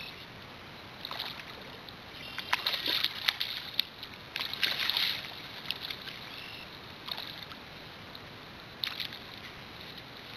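Pond water sloshing and splashing in short, irregular bursts around float tubes, the loudest cluster a few seconds in.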